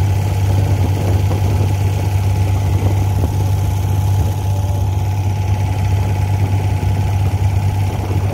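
Diesel engine of a wooden abra water taxi running steadily under way, a deep, even drone.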